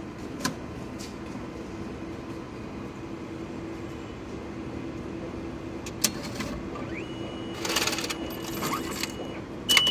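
Railway ticket vending machine issuing an IC commuter pass: its internal mechanism clicks a few times, then whirs in a noisy mechanical run near the end, over a steady low hum. A steady high electronic tone starts about seven seconds in.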